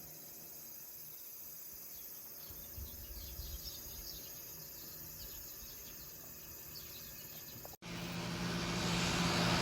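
Faint, steady insect chirping, with a few short bird chirps in the middle. About eight seconds in the sound cuts off abruptly and a steady low hum with rushing noise rises in its place.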